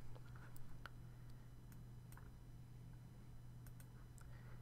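Near silence: a low steady hum with a few faint, scattered clicks.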